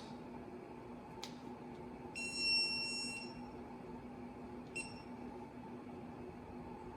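Electronic beeps from a digital torque wrench being set: a click, then one beep about a second long, and a short second beep near five seconds in.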